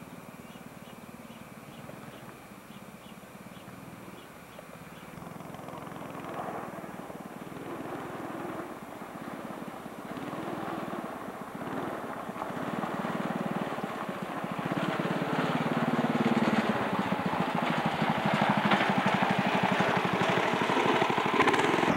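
Go-kart's small engine running, getting steadily louder as the kart approaches, its pitch rising and falling with the throttle.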